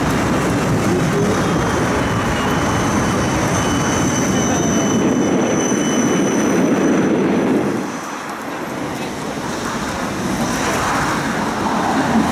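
Siemens Combino tram running on its rails with a steady rumble and a thin high squeal, then slowing into a stop. The rumble falls away suddenly about eight seconds in as the tram halts.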